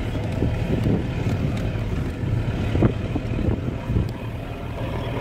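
Low, steady rumble of a vehicle running as it drives, with wind buffeting the microphone and a few small knocks.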